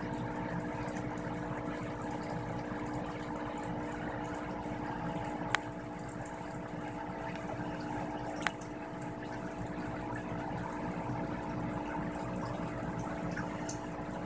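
A steady hum of several held tones over a rushing, water-like noise, with two sharp clicks, about five and a half and eight and a half seconds in.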